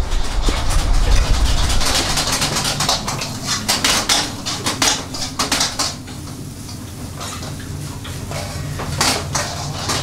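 Restaurant kitchen clatter: metal pans and utensils knocking and scraping in quick irregular clicks over the steady hum of the extractor hood. A low rumble of street traffic is heard at the start.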